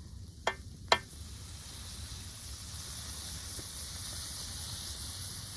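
Catfish fillets frying in butter on a hot grill, sizzling steadily and growing louder after about a second. Two sharp clicks, like a utensil tapping metal, come in the first second.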